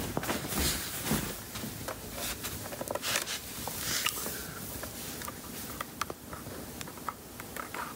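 Footsteps on carpet and handling rustle of a hand-held phone, then a few light clicks of buttons being pressed on a powered speaker's control panel in the last couple of seconds.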